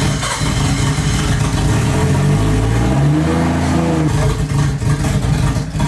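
Nissan Skyline R34 GT-R's twin-turbo straight-six running just after restarting from over two years of sitting, revved once about three seconds in, the pitch rising and then dropping back to a fast idle.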